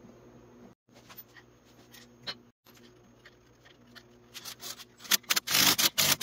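Tail housing bolts on a 4L60E transmission being fastened. There are a few light metal clicks, then from about four seconds a quick run of loud sharp clicks with a dense clatter near the end.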